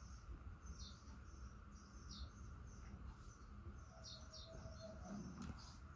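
Small birds chirping faintly in the background, a string of short, high, falling chirps repeated every second or so.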